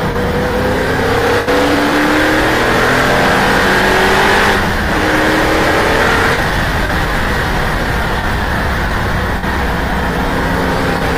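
Race car engine heard from onboard, accelerating hard with rising pitch, with a quick upshift about four and a half seconds in. It pulls again and then eases to a steadier note after about six seconds, over road and wind noise.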